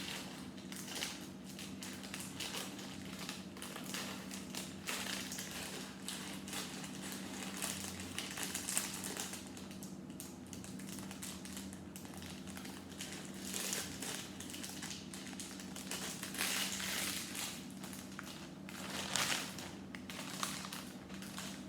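Rummaging through a small plastic bag of loose Lego pieces: the bag crinkles and the bricks rustle and clatter irregularly, over a steady low hum.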